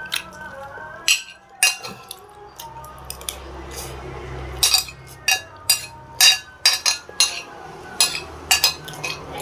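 Cutlery clinking against a plate during a meal: about a dozen sharp, irregular clinks over a faint steady background.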